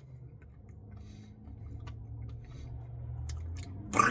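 A few faint, scattered clicks over a low steady hum. A voice starts with a falling sound right at the end.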